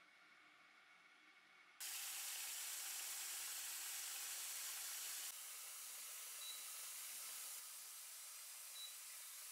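Tap water running into the plastic water basket of a countertop dishwasher: a steady hiss that starts suddenly about two seconds in. The hiss goes on a little quieter after that, and two short high beeps sound a couple of seconds apart as the dishwasher's panel buttons are pressed.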